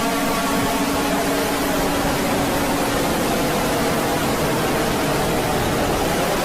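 Loud, steady static hiss from an emergency alert broadcast, filling the gap between announcements. A faint pitched hum sits underneath and fades out about halfway through.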